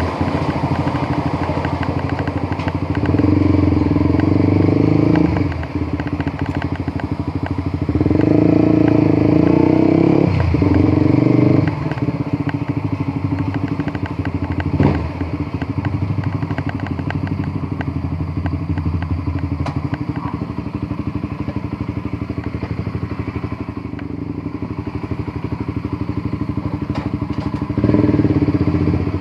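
Honda CBR150R single-cylinder sport motorcycle engine running under way, with a steady note. It gets louder as the bike pulls harder for a couple of seconds about three seconds in, again for a few seconds from about eight seconds, and once more near the end.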